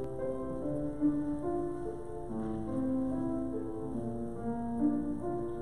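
Keyboard playing the instrumental introduction to a choir anthem: slow chords of held notes moving smoothly from one to the next, with no singing yet.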